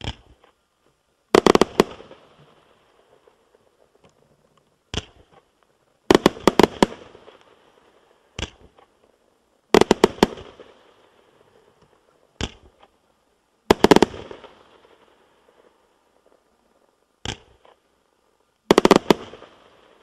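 30 mm fan-firing firework battery going off: about every four seconds a quick volley of several sharp bangs, each volley trailing off into a fading crackle, with a single bang between the volleys.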